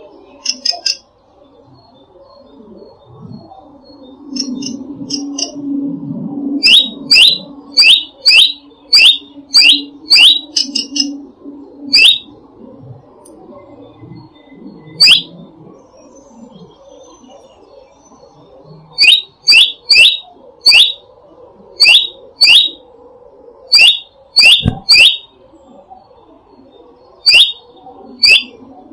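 Wild birds singing. One bird repeats a loud, sharp chirp about twice a second in runs of several calls, with fainter high twittering between, over a low rumble.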